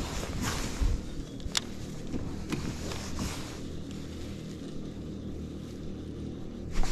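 The fishing kayak's drive running underway, a low steady hum, with a few light clicks in the first few seconds.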